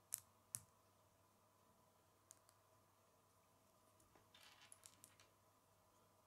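Small plastic Lego pieces being handled and pressed together: two sharp clicks just after the start, two faint ones around two seconds in, then a short patch of light plastic rattling with several small clicks around four to five seconds in. A faint steady hum lies underneath.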